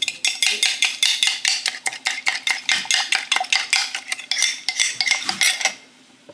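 Metal spoon beating instant coffee, sugar and a splash of water into a frothy paste in a ceramic mug, clinking quickly against the sides about five or six strokes a second, then stopping abruptly near the end.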